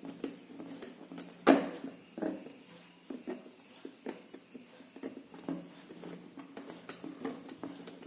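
Small bolts and nuts being fastened to hold a motor on a robot car chassis: a string of light clicks and taps of metal parts and tool, with one louder knock about a second and a half in.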